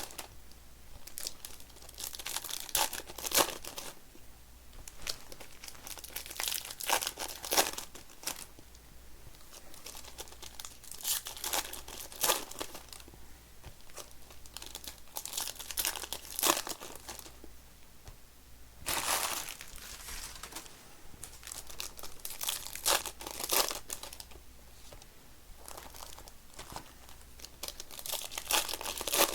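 Foil trading-card pack wrappers being torn open and crinkled, in irregular bursts with short quiet gaps between.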